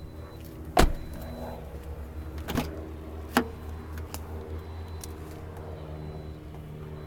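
Handling noise on a car: one sharp knock about a second in, then a couple of smaller knocks and light clicks, over a steady low hum.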